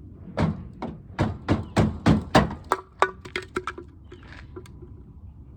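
A quick series of sharp knocks and clicks, roughly a dozen over three seconds, loudest in the middle and thinning out near the end, like hard parts being handled.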